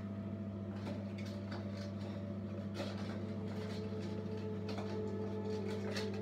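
Soft rustling and small clicks of hands pinning hair up with hairpins, over a steady low hum.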